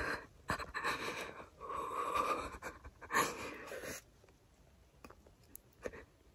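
A woman's heavy breathing close to the microphone: four loud breaths in the first four seconds, one with a brief voiced sigh, then it eases off.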